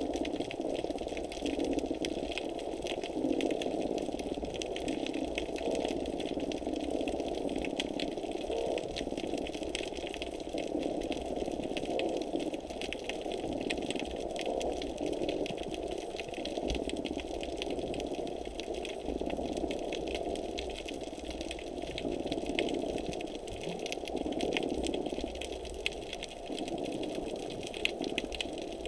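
Underwater platform's motor running steadily, heard underwater as a muffled mechanical whir with a low hum beneath, overlaid by a constant fine crackle of small clicks.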